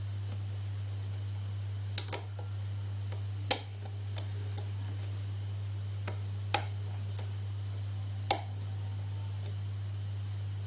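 Lock pick working the pin stack of a 5-pin SC1 lock cylinder: about nine sharp, irregular metallic clicks, with the loudest two near the middle and near the end.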